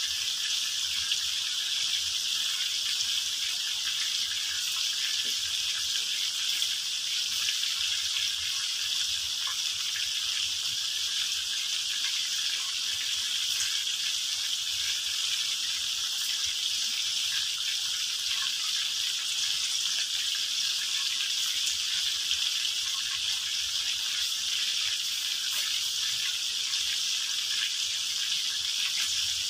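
Chicken pieces deep-frying in hot oil in a wok: a steady sizzle with small crackles.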